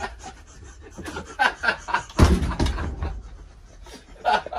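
Men chuckling and snickering in short bursts, with a dull low thump about two seconds in.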